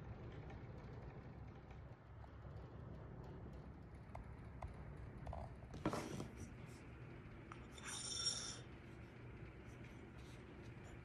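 Faint steady low hum of room tone, broken by small knocks and clinks of a metal hand auger being handled: a sharp knock about six seconds in and a brief metallic ring about two seconds later.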